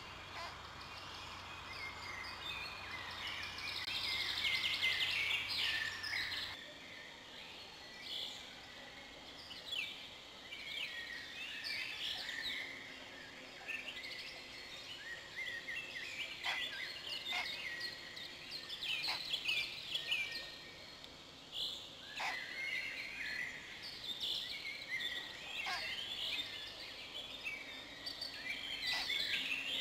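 Wild songbirds singing and calling, with many short chirps and falling notes overlapping throughout. A faint low hum stops abruptly about six seconds in.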